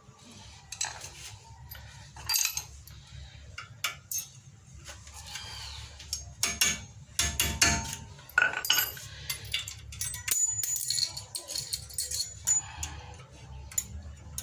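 Irregular metal clinks and taps of a brake pad retaining spring against the brake caliper and pads as it is worked into place, some with a brief high ring. A steady low hum runs underneath.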